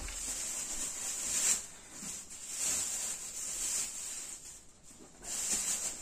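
Thin plastic bag rustling and crinkling in uneven spells as bread is handled inside it.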